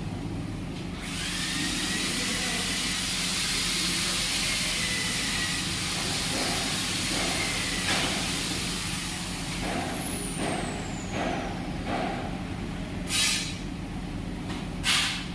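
A loud steady hiss of a high-pressure jet starts about a second in and runs for about eight seconds, with a faint falling whistle as it dies away. Two short hiss blasts follow near the end.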